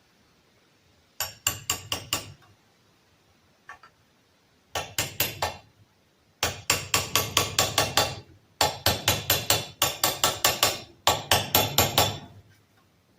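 Hammer tapping on a socket used as a driver to seat a crankshaft oil seal by its steel outer rim into the crankcase half of a Robin 2PG engine. The taps come quickly, about five a second, in several runs of four to ten strikes with short pauses between. The seal is going down fine.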